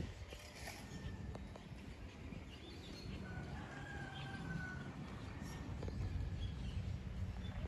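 A rooster crows once about three seconds in, one long call of about a second and a half, over a low steady rumble.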